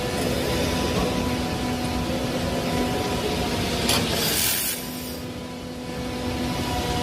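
Workshop machinery running with a steady hum and noise. A short hiss comes about four seconds in, and the noise drops for a moment before it picks up again.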